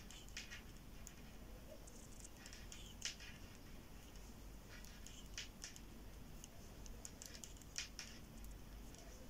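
Faint, scattered ticks and scrapes of metal knitting needles sliding through yarn as knit stitches are worked.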